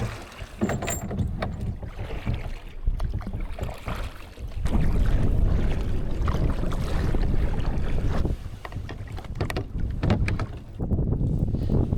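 Strong wind buffeting the microphone in gusts, heaviest in the middle, with the splashes and knocks of a kayak paddle.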